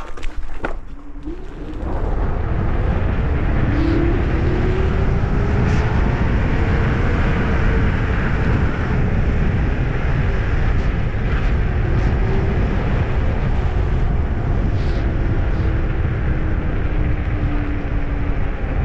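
MS Energy X10 electric scooter riding over asphalt: heavy wind and road rumble on the microphone, with the motor's whine rising as it speeds up in the first two seconds, then holding with small changes in pitch. A few knocks near the start.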